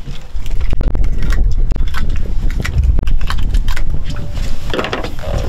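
Deep, uneven rumble of wind buffeting the microphone, with scattered sharp clicks and knocks from fishing tackle as a caught blue catfish is unhooked over a bucket.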